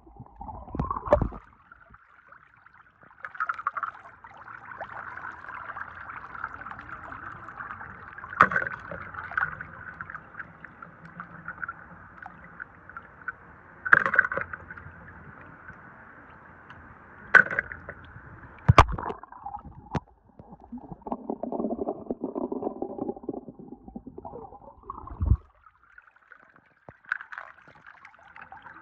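Steady splashing, running water, broken by a handful of sharp clacks as toy cars are dropped into a plastic tub.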